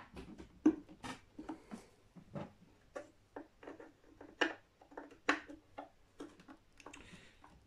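Control knobs being pressed onto the potentiometer shafts of an Epiphone Sheraton II semi-hollow guitar: a scatter of small, irregular clicks and taps, a few of them sharper than the rest.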